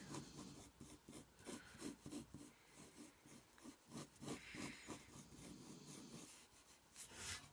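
Faint scratching of a pencil on paper in many short strokes, sketching an outline.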